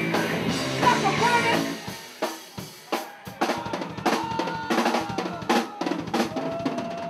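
Punk rock band playing live, drum kit to the fore: dense music for the first couple of seconds, then sharp separate drum hits with long held notes over them.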